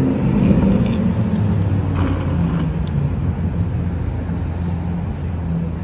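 A car driving past close by and turning through an intersection, its engine fading within the first second or so, then the steady low rumble of city traffic.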